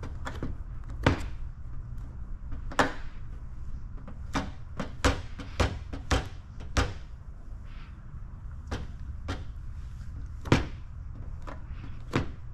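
Irregular sharp clicks and taps, a dozen or more, from hands working paint protection film onto a car fender, over a steady low hum.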